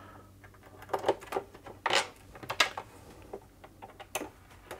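Light clicks and scrapes of a Torx 20 screwdriver working screws out of a sewing machine's plastic housing, with sharper clicks about two, two and a half and four seconds in.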